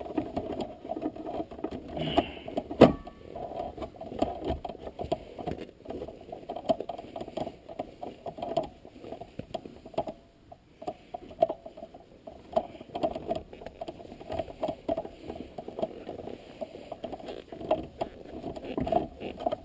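Shift boot being worked down over a short-throw shifter's handle by hand: continuous rustling and creaking with many small irregular clicks, and one sharper knock about three seconds in.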